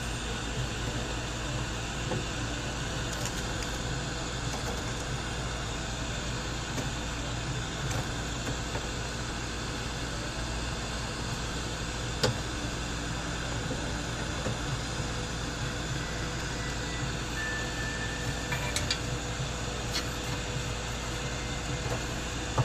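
Rework station's fan blowing steadily with a low hum underneath while it heats the charging port's solder to free the port from the tablet's logic board. A single light tap comes about twelve seconds in.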